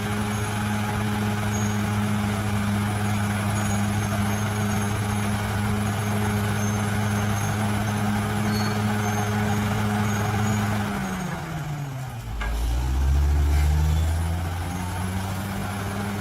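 Bulldozer's diesel engine running steadily under load; about eleven seconds in the revs drop sharply, then climb back with a deeper, louder rumble.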